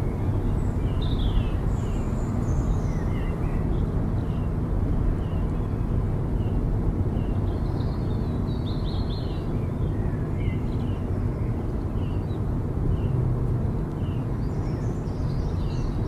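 A car driving along a highway: steady low road and engine rumble. Short high chirps repeat about once a second, with a few warbling bird-like calls over them.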